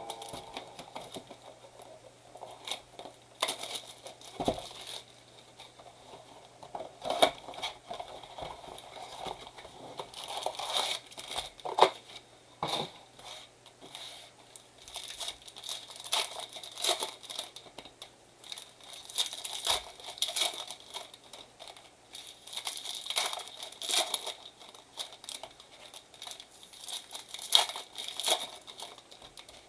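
Plastic wrapping crinkling and tearing in irregular bursts as a sealed blaster box of baseball trading cards and its packs are unwrapped and ripped open.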